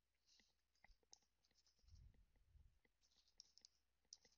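Faint computer keyboard typing: a quick, uneven run of small key clicks, with a soft low bump about two seconds in.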